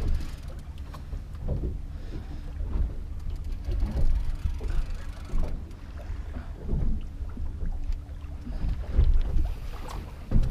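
Wind buffeting the microphone over water slapping against a small boat's hull, a low rumble that swells and dips irregularly.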